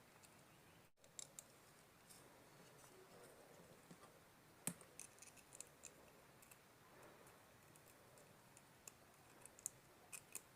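Faint, scattered small clicks of metal parts being handled as small nuts are tightened by hand, the sharpest about halfway through, over near silence.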